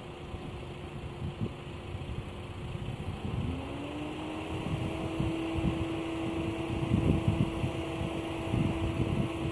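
Level-crossing warning signal with its first-generation electric bell ringing steadily, while an approaching train's rumble grows louder. About three and a half seconds in, a steady whine rises in pitch and then holds.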